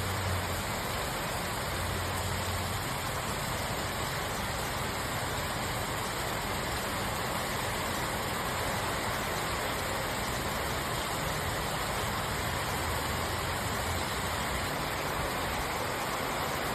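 Heavy rain falling steadily in a storm, with a low vehicle engine hum underneath in the first few seconds and faintly again later.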